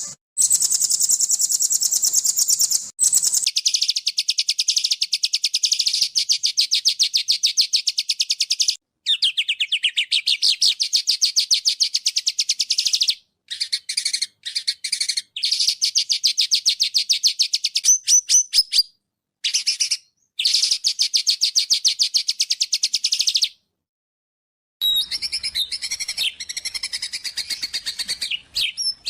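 Small songbird singing fast, dense trills of very rapid high notes, each run lasting a few seconds and broken off by abrupt short silences. Near the end the song turns to more varied, changing phrases.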